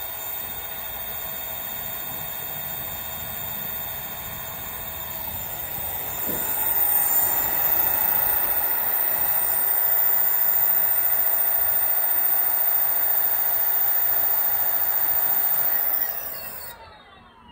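20-inch 1500 W direct-drive brushless front hub motor spinning a spoked wheel at high speed with no load: a steady high whine over a rushing air noise. Near the end it winds down, the whine gliding steadily lower in pitch.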